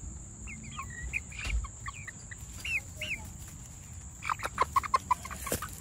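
Young chickens making short high chirping calls, then a fast string of loud clucks about four seconds in: the birds are startled and giving an alarm call.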